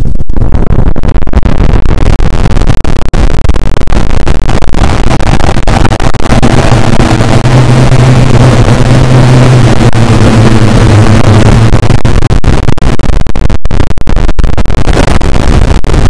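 Harsh, clipped wall of distorted noise: a clock's ticking stacked so many times that no single tick can be heard. A low steady drone runs under it through the middle.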